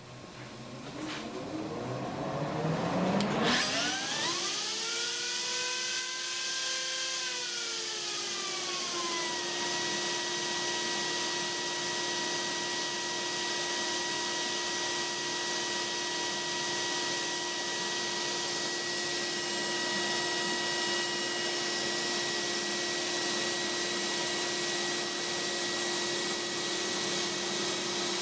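A CNC machine's router and its dust-collector vacuum starting up: a whine rises over the first few seconds, dips and settles about ten seconds in, then runs steadily with a hiss of suction as the router mills the cedar sign.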